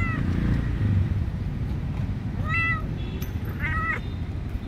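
Kitten mewing: three short, high-pitched mews, one right at the start, one about two and a half seconds in and another a second later, over a steady low rumble.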